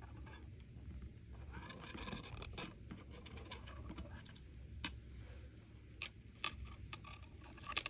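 Thin silver-plated copper wire being bent and handled by hand: a faint scratching rustle, with a few short sharp clicks in the second half.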